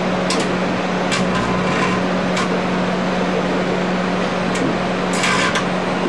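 Microwave oven running with a steady hum and a noisy rush while the object inside arcs and burns. Scattered sharp electrical crackles and snaps sound through it, several in a cluster near the end.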